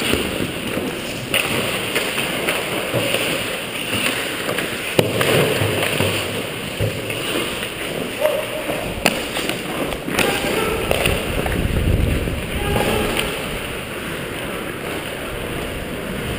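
Ice hockey play heard close up from a player's helmet: skate blades scraping and carving the ice in a continuous hiss, broken by a few sharp clacks of sticks and puck.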